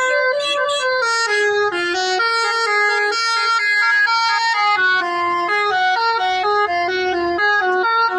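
A bus's basuri telolet horn playing a fast, winding melody: a continuous run of short stepped notes with no pause between them.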